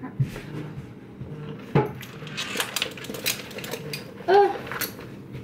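Cutlery and a plate clinking and knocking on a kitchen counter in a scatter of light taps, with a brief voice-like sound about four seconds in.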